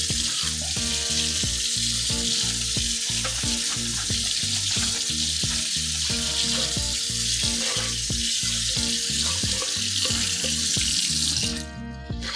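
Kitchen tap running steadily into the sink as the microwave's glass turntable plate is rinsed, then shut off near the end. Background music plays underneath.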